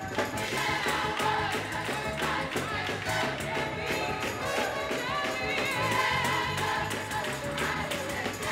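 Gospel song recorded live in church: singers' voices over band accompaniment with a steady bass line and percussion.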